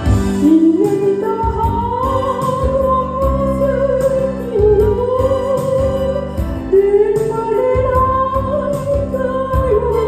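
Music from a Korean trot song performance: a full band backing with a lead melody of long, held notes that slide up into pitch.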